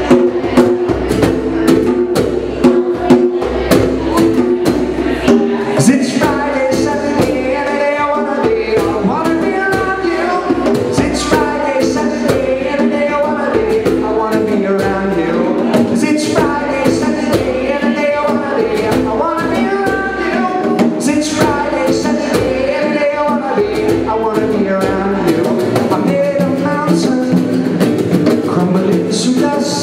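Live acoustic reggae-rock song: an acoustic guitar strumming with hand-played bongos, and a man singing through much of it.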